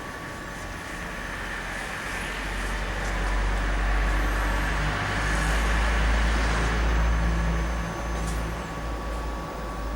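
Laser welding machine equipment running: a low rumble and hiss swell for several seconds and ease off near the end, over a steady high-pitched whine.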